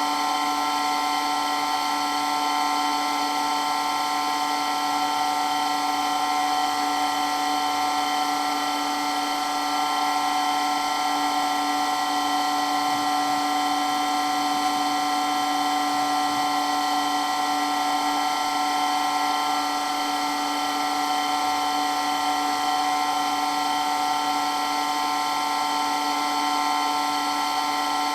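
Electric water pump running steadily, a loud motor whine made of several unwavering tones over a hiss, holding the same pitch and level throughout.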